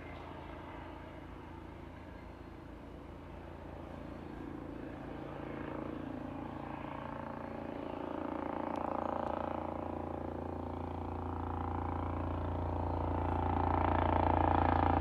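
Police Scotland helicopter, a Eurocopter EC135, flying overhead: a steady low rotor thrum with engine noise, growing steadily louder as it nears.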